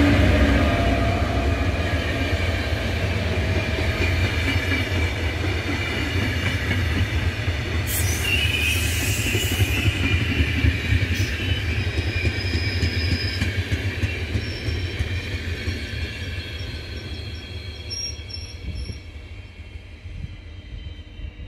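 A passenger train's coaches rolling past on the next track, with steady wheel-on-rail noise, fading as the last coach draws away. A short high wheel squeal comes about eight seconds in, and a few faint squeaks near the end.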